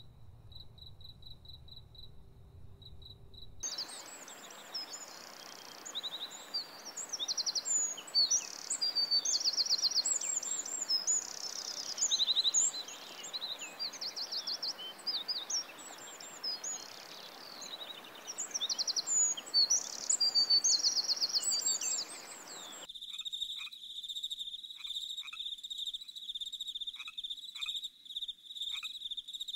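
Birds chirping: fast, high twitters and trills over a steady hiss, entering about four seconds in after a faint pulsing insect chirp. After about twenty seconds they give way to a steady, high cricket-like insect trill.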